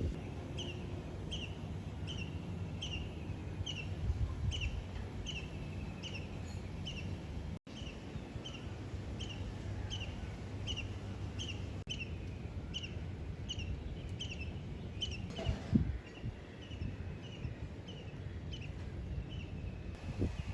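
A bird calling with a short, high chirp repeated steadily about twice a second, over low background rumble, with a single dull knock about three-quarters of the way through.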